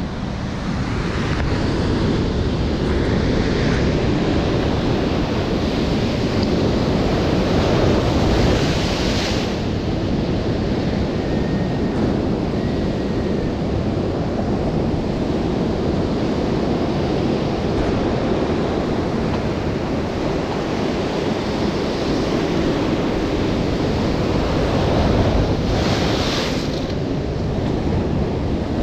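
Ocean surf washing in over shoreline boulders: a steady rush of white water, swelling into two louder surges as waves break, one about a third of the way in and one near the end.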